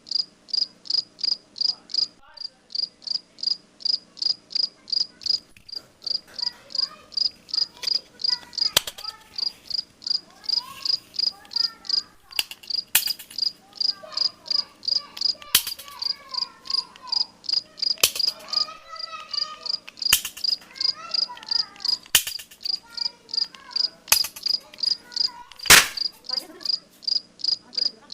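Toy cap gun firing about eight sharp pops, roughly two seconds apart, the loudest near the end. Behind them a cricket chirps steadily, about three high chirps a second.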